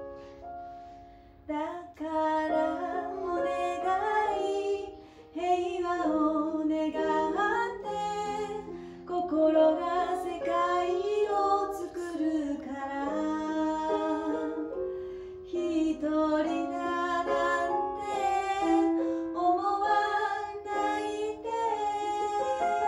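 A woman singing a Japanese song, accompanied on an electronic keyboard; her voice comes in about a second and a half in.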